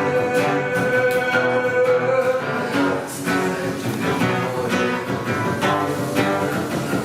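Acoustic guitar strummed steadily, with a long held note above it for the first two seconds or so.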